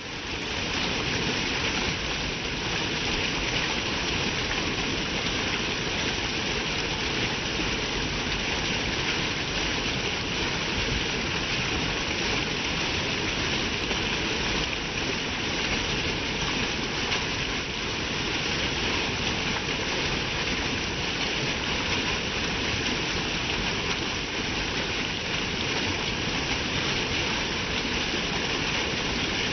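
Flowing water of a river or creek stream, a steady rushing with no change, fading in over the first second.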